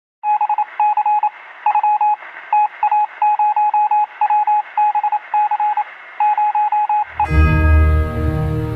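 Intro sound effect of rapid beeps on one pitch, keyed in short and long runs like Morse code, over faint static with a narrow, radio-like sound. Music with a low bass comes in about seven seconds in.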